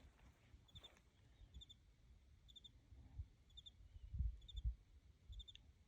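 Quiet night ambience with a faint high chirp of three quick pulses repeating about once a second, and a couple of soft low thumps about four seconds in.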